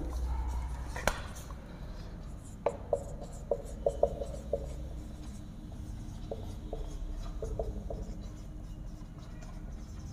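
Felt-tip marker writing on a whiteboard: short taps and strokes in two runs as letters are formed, with a sharp click about a second in. A low steady hum lies underneath.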